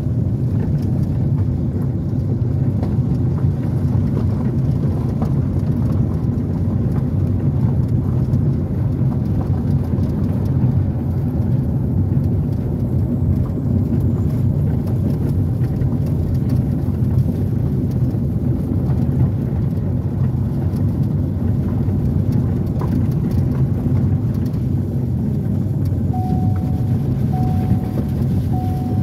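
Car driving on a gravel road, heard from inside the cabin: a steady engine and tyre rumble with gravel crackling under the tyres. Near the end a short beep starts repeating a little more than once a second.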